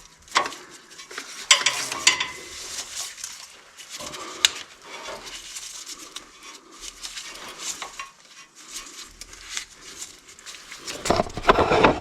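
Metal tools and parts clinking and rattling as a drain plug and Allen wrench are handled. The clinks are scattered throughout, with a louder cluster of knocks near the end.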